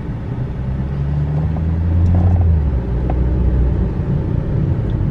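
Car engine and road noise heard from inside the cabin while driving: a low rumble that swells about a second in and eases again near the end.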